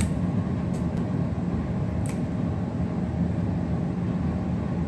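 A steady low hum runs throughout, with a few faint short clicks about one and two seconds in.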